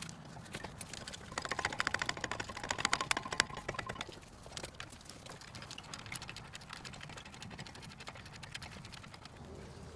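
Ratchet wrench clicking rapidly as the brake caliper bracket bolts are run in and tightened, loudest in the first few seconds, then lighter scattered clicks.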